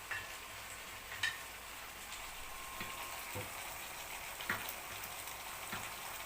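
Chicken breast and vegetables sizzling steadily in a frying pan, with a cooking spoon scraping and knocking against the pan a few times as it is stirred.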